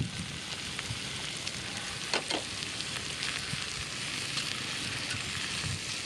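Chopped vegetables sizzling steadily in a cast-iron skillet over a wood fire, with a few sharp crackles about two seconds in.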